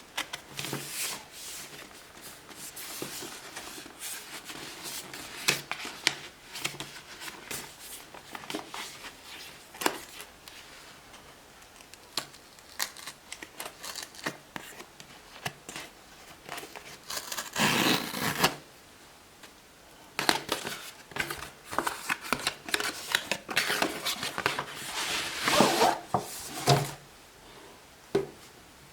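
Packaging of a GoPro HERO10 being handled and opened by hand: scattered clicks and light knocks, a longer tearing rustle about eighteen seconds in, and a run of rustling and crinkling near the end.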